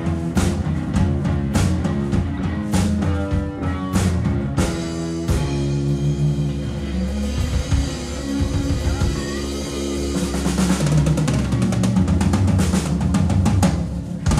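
Live rock band (electric guitar, bass guitar and drum kit) playing an instrumental passage with no vocals. Steady drum hits give way to a held chord about five seconds in, and the drums build into a roll over it near the end, like a song's closing flourish.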